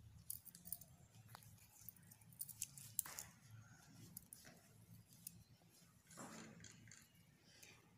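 Faint handling sounds: a few light clicks and taps as the plastic screw cap of a moisturizer tube is twisted off and set down on the tabletop, over a low room hum.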